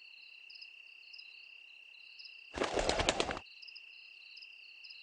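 Night-time cricket chirping over a steady high insect drone, with a short burst of wing flapping, a chicken flapping its wings, for under a second around the middle.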